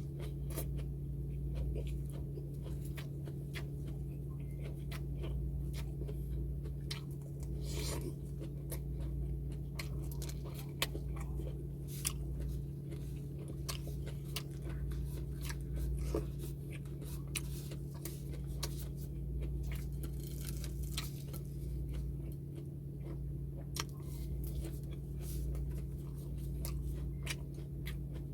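Close-up chewing and crunching of food, with many short crisp crunches scattered throughout, over a steady low hum.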